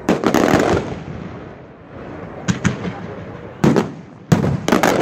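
Fireworks: aerial shells bursting with a rapid cluster of sharp bangs right at the start, then single bangs at intervals and another cluster near the end, with a hiss between them.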